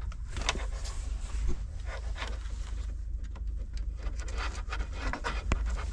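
Rustling and scattered clicks of wiring-harness connectors being handled and plugged into the back of an aftermarket Android head unit, over a steady low hum.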